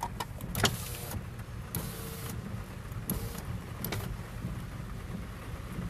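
Car's electric window motor whirring in two short runs, about two and three seconds in, as the side window is lowered. A few sharp clicks come near the start, over a steady low rumble from the rainstorm.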